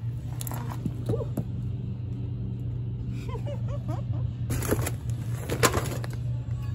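Platform shoe heels clacking on concrete and crushing small toy cars, giving a series of sharp cracks and crunches, loudest about five and a half seconds in. A steady low hum runs underneath.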